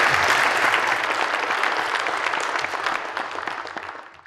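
Audience applauding, a dense patter of many hands clapping that eases off slightly and then cuts off abruptly at the very end.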